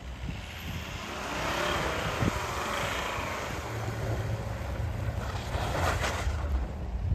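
Volvo XC70 five-cylinder diesel engine running under load, driving through snow, with a rushing noise in the first half and a steady low engine drone in the second.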